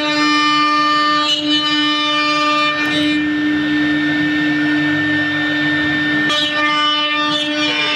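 CNC router spindle running and cutting, a loud steady whine with a layer of cutting noise beneath it; the tone shifts slightly about six seconds in.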